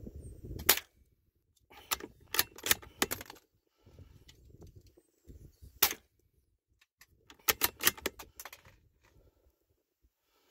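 Sharp cracks and clicks from a scoped rifle. There is a loud single crack about a second in and another near six seconds. Quick runs of clicks come around two to three seconds and again around seven and a half to eight and a half seconds.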